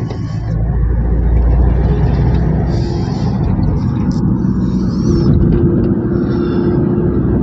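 Car driving on a highway, heard from inside the cabin: a steady rumble of engine and tyre noise, with a steady hum joining about five seconds in.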